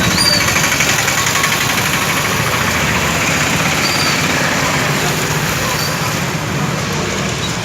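Street traffic: vehicle engines running under a loud, steady hiss.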